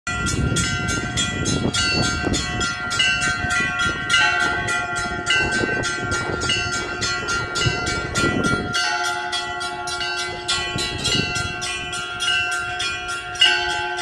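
Orthodox church bells ringing a festal peal for the Annunciation. Small bells are struck rapidly, about five strikes a second, over the sustained ringing of larger bells.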